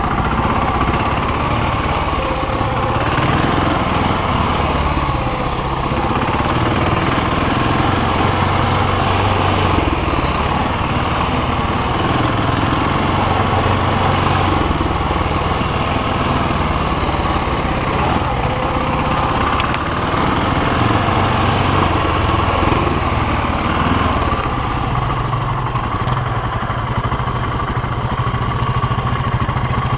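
BMW G650X Challenge's single-cylinder engine running steadily under the rider as the motorcycle rolls slowly through snow, its note changing a little near the end.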